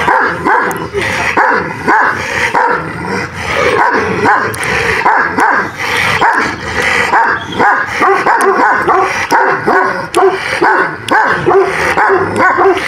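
Kangal shepherd dogs barking at one another in a fast, unbroken run of barks, about three a second, with a few higher yips among them.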